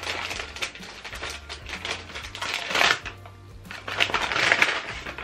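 Paper crinkling and rustling in two long bouts as a small wrapped keychain is unwrapped by hand, with a light metallic jingle from the keychain.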